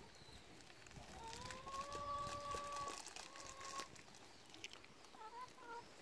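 A long, steady, pitched animal call, held for nearly three seconds, followed about five seconds in by a few short, wavering notes, over faint scattered clicks.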